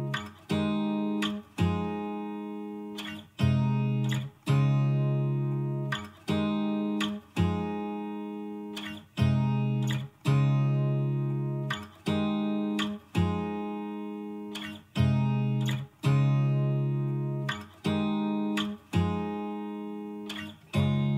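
Background music: guitar strumming chords, one strum about every second to second and a half, each chord ringing out and fading before the next.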